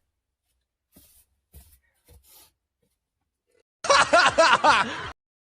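Laughter: a short burst of quick, pitched laughs starting about four seconds in, with only faint brief sounds before it.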